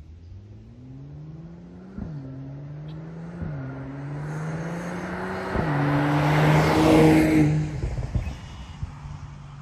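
Mercedes-AMG GLE 53's turbocharged inline-six accelerating hard through the gears, with three quick upshifts that each drop the exhaust note's pitch. It grows louder to its loudest a little past the middle as it drives past, then fades away.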